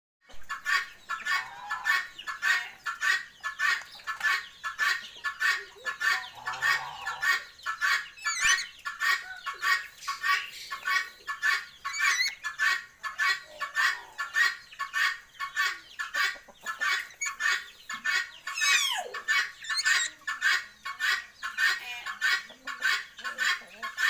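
Bird calls: a steady, even rhythm of short clucking calls, about four a second, with a few higher whistled calls over it, one a long falling whistle about three-quarters of the way through.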